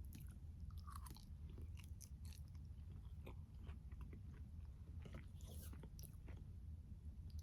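A person chewing a mouthful of tomato, peach and basil salad, with many small irregular mouth clicks, over a steady low hum.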